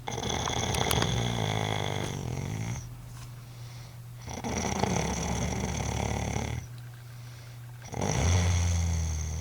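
A woman snoring in her sleep: three long snores about four seconds apart, each lasting two to three seconds, the last one still going near the end.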